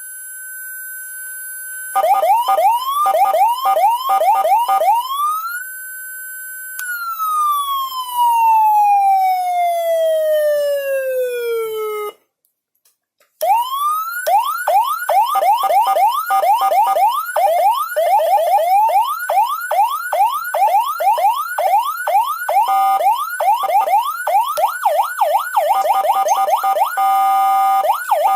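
Senken CJB100BD electronic siren module cycling through its tones. It rises to a held high tone, runs fast yelp sweeps, climbs again and then winds slowly down in pitch. After a second's break about twelve seconds in, it plays long runs of rapid yelp sweeps at changing speeds and ends on a steady tone before rising again.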